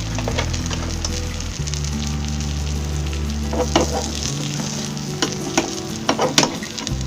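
Hot oil sizzling steadily in a frying pan as food fries, with several sharp clicks of a utensil against the pan in the second half. Background music plays underneath.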